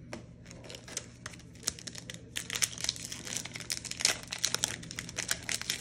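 Foil wrapper of a Panini Contenders football card pack crinkling and tearing as it is opened by hand, light crackles at first that grow busier from about halfway through.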